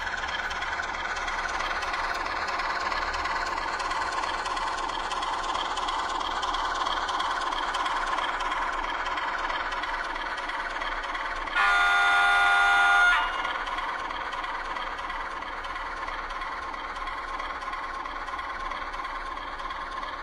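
Sound decoder of an H0-scale DA 060 (Romanian CFR class 60) diesel-electric locomotive model playing a steady diesel engine running sound. About halfway through, one horn blast of several tones sounds for about a second and a half.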